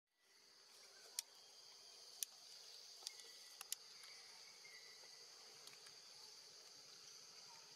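Faint, steady high-pitched chorus of insects, with a few short sharp clicks in the first four seconds.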